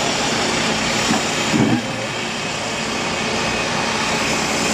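Heavy road-works machinery running with a steady engine noise, with one short louder surge about a second and a half in.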